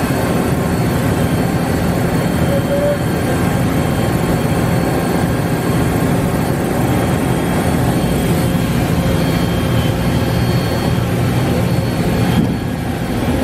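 Matsuura CUBLEX-42 5-axis CNC machining center cutting a part under flood coolant: a loud, steady wash of spindle, cutting and coolant-spray noise with faint steady whines over it.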